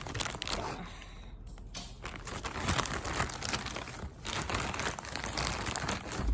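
Parcel packaging crinkling and rustling as it is cut and pulled open, with irregular crackles and tearing.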